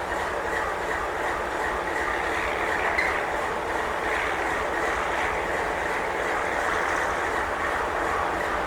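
Double-stack intermodal freight train rolling past: a steady rumble of wheels on rail, with one brief click about three seconds in.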